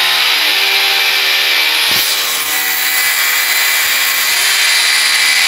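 Corded power drill with a long bit running steadily as it drills a probe hole into a wall, with one brief knock about two seconds in.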